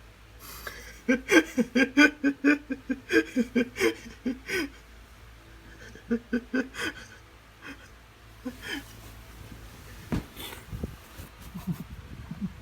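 A person laughing in quick, rhythmic bursts for about four seconds, then a shorter bout of laughter a little later. A few low thuds come near the end.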